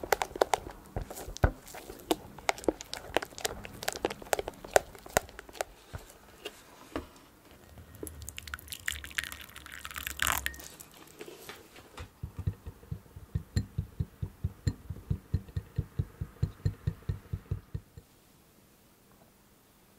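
Silicone spatula folding a berry mousse in a glass bowl, with wet squelches and clicks against the glass. About eight seconds in, water is poured into a small glass bowl for a few seconds. Then comes steady rhythmic stirring of the mousse, about three strokes a second, which stops near the end.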